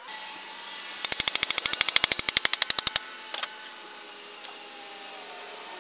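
A rapid, even run of about twenty sharp clicks, roughly ten a second, lasting about two seconds.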